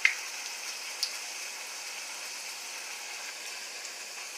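Hojaldra dough frying in hot oil in a pan, a steady sizzle. A metal utensil clicks against the pan right at the start and again about a second in.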